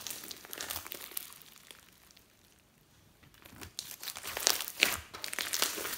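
Pink slime mixed with foam beads and glitter being squeezed and stretched by hand, giving sticky crackling and popping. It goes quiet for about a second midway, then picks up again with louder pops.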